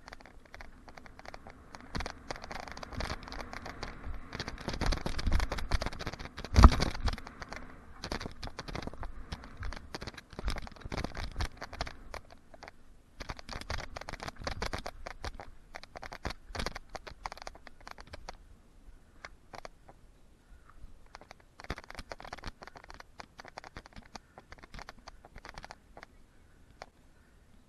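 Mountain bike rolling over a hard-packed dirt jump track: tyre noise with a dense rattle and clicking from the bike. There is one heavy thud about six and a half seconds in, the loudest sound, as the bike lands a jump.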